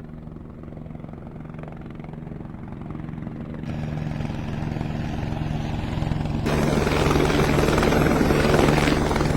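A steady, fast-pulsing motor sound that grows louder, with brighter, hissier sound cutting in abruptly twice.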